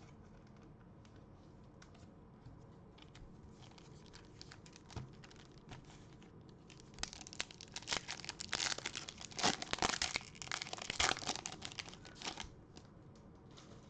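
Plastic wrapper of a trading-card pack being torn open and crinkled by hand, loudest and densest from about halfway in until near the end, with light handling crackles before.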